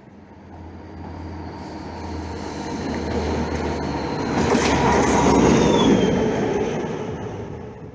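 Yellow infrastructure diesel locomotive approaching and passing, its engine drone building to a peak about five seconds in and then fading. A thin high wheel squeal falls in pitch as it goes by.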